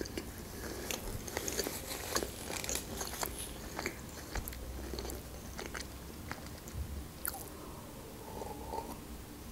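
Close-miked chewing of a mouthful of lettuce-filled roll: wet smacking and light crunching mouth sounds with many small clicks. About eight seconds in there are sips and swallows from a glass.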